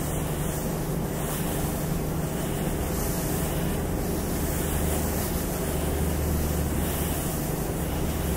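Building ventilation fans running: a steady rushing noise over a low, even hum.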